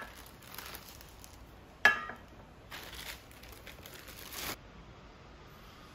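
Clear plastic wrapping crinkling and rustling in short bursts as a new pan is unwrapped, with one sharp knock just under two seconds in that is the loudest sound.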